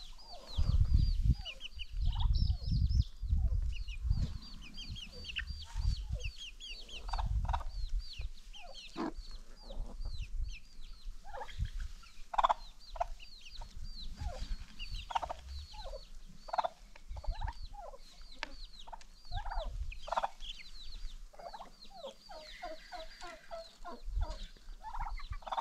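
Free-range chickens clucking, over a dense run of short, high chirps throughout. Low rumbling thumps in roughly the first eight seconds.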